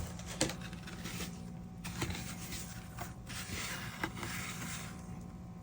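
Soft rustling and scraping of unboxing packaging being handled, with a few faint taps.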